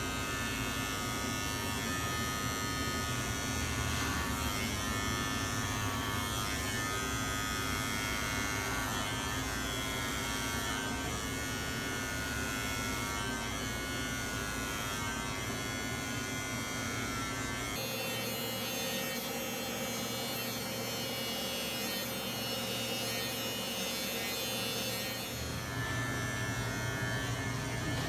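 Electric hair clippers buzzing steadily during a haircut, their tone shifting abruptly about two-thirds of the way through.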